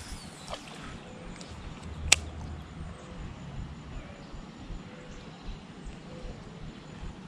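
Baitcasting reel being worked on a cast and retrieve, with one sharp click about two seconds in over a faint outdoor background.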